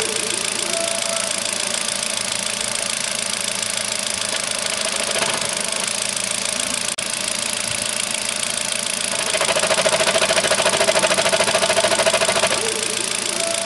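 Kia car engine running with a fast, even ticking over its steady sound, the knocking-clicking noise complained of on this car with about 30,000 km. It grows louder for about three seconds in the second half, then settles back.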